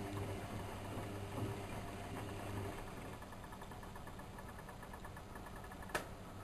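Whirlpool Expert 1000 washing machine running, with a steady motor hum that eases off about two and a half seconds in, faint regular ticking, and a single sharp click near the end.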